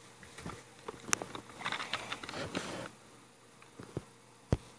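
Handling noise: a run of light clicks, taps and scraping for about three seconds, then two sharp separate clicks near the end.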